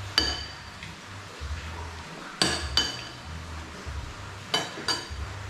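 Metal spoon clinking against ceramic dishes during a meal: five short ringing clinks, one near the start, two close together in the middle and two close together near the end.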